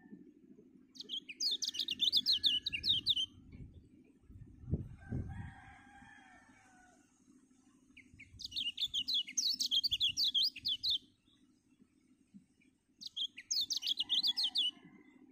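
Caged kecial songbird singing three bursts of rapid, high chirping notes, each note falling in pitch. Between the first and second bursts there is a low thump and a fainter, lower-pitched call.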